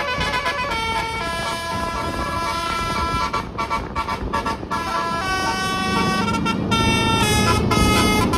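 Indonesian 'telolet basuri' musical bus horn playing a tune, its notes switching pitch every fraction of a second. A low rumble grows beneath it in the last couple of seconds.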